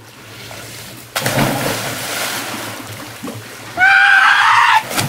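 Water rushing and splashing down a water slide as a person slides down it, starting suddenly about a second in. Near the end a loud, high-pitched whoop of about a second rings out over the water.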